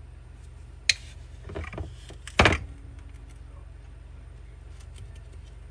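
Kitchen handling sounds as sugar and yeast are fetched: a sharp click about a second in, a brief rustle, then a louder clatter, over a low steady hum.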